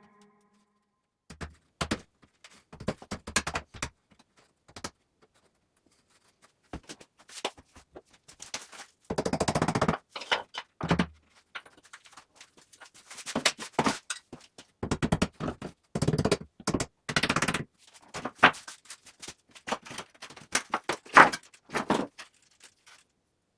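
Irregular knocks, clatter and short scrapes of hand construction work, in scattered bursts with dead silence between them.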